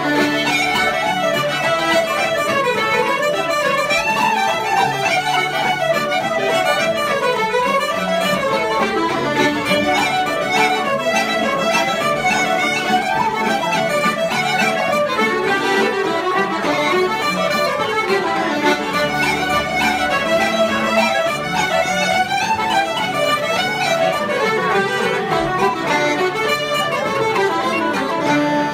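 Traditional Irish session music: fiddle and wooden flute playing a fast tune in unison, with strummed acoustic guitar accompaniment.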